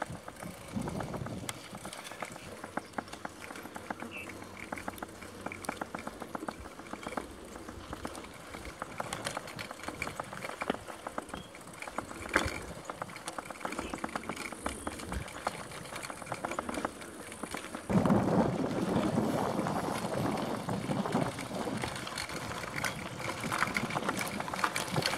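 Mountain bike rolling along a dirt singletrack, with tyre noise on the trail and rapid small clicks and rattles from the bike. About 18 seconds in it becomes louder and rougher.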